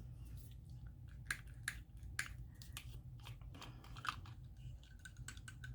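Faint scattered plastic clicks and handling noise from working the pump nozzle of a small clogged spray bottle that won't spray, over a faint steady low hum.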